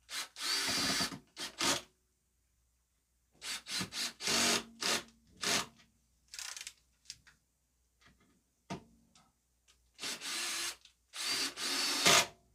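Rummaging through packaging: a series of short scraping and rubbing noises in separate bursts, the loudest near the start and near the end.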